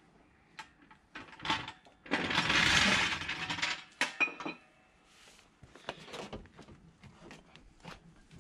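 Metal tools and wheel hardware clinking and knocking during wheel fitting on a car, with one loud rattling burst lasting about a second and a half, starting about two seconds in.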